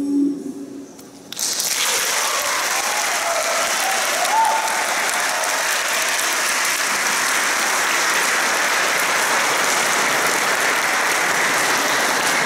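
The last held chord of an unamplified four-voice a cappella group dies away. About a second and a half in, an audience breaks into steady, dense applause, with a short voice calling out over it about four seconds in.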